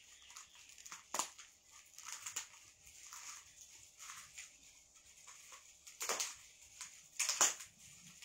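Plastic garment packaging rustling and crinkling as wrapped clothes are handled, with a few louder crackles about a second in and again around six and seven seconds in.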